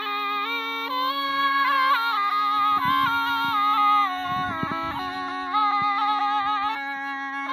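A snake charmer's been (pungi), the reed-and-gourd pipe, playing a melody over one steady, unbroken drone note.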